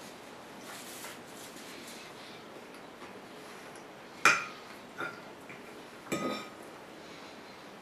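Metal fork clinking against a ceramic plate while spearing salad: a sharp clink with a short ring about four seconds in, a lighter one a second later, and another ringing clink around six seconds in.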